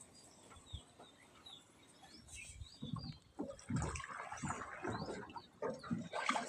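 Small birds chirping, with irregular water splashing and sloshing that gets busier in the second half.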